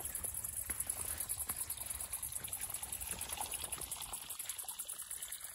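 Faint trickling of water in a small hot-spring pool, with a steady high chirring of insects behind it.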